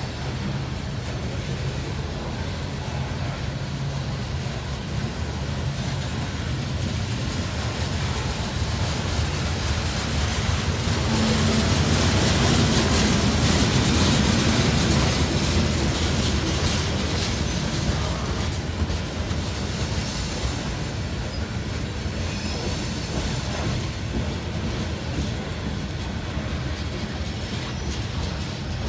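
Freight train of coal hopper cars rolling past: a steady rumble of steel wheels on the rails with quick clicks from the wheels, loudest about halfway through.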